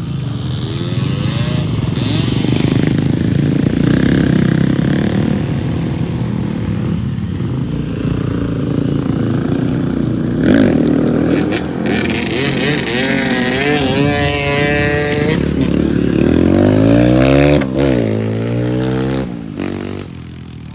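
Two-stroke trail motorcycle engines running and being revved, the pitch repeatedly rising and falling in the second half, then dropping away near the end.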